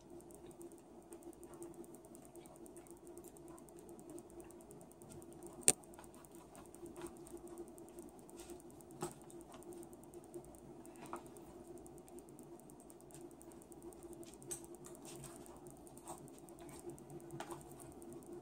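Metal knife and fork clicking and scraping against a plastic takeout container while cutting food, as scattered small taps with one sharper click about six seconds in.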